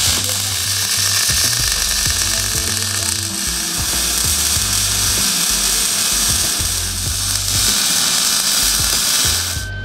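Lincoln Pro-Mig 140 MIG welder's arc crackling and hissing steadily as a bead is run around the edge of a steel plate on a car frame rail; the arc stops abruptly just before the end.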